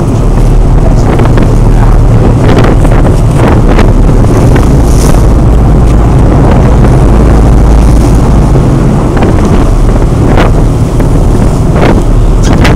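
Strong wind buffeting the microphone on a boat at sea, over the steady low rumble of the boat. A few short sharp slaps cut through near the end.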